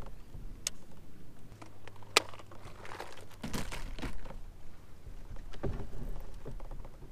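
Scattered clicks and knocks of fishing gear handled aboard a plastic kayak, with a few duller thuds near the middle and a faint steady low hum underneath for a few seconds.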